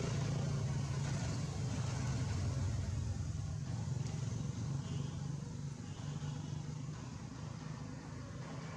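Steady low motor hum in the background, easing off a little in the second half.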